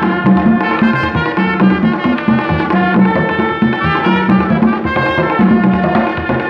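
Live Haitian folk music from a small band: hand drums beating a fast, driving rhythm under a trumpet melody.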